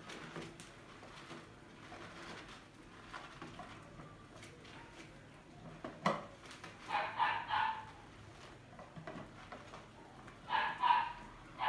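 Short, pitched animal calls: a quick run of three about halfway through and two more near the end, after a single sharp click.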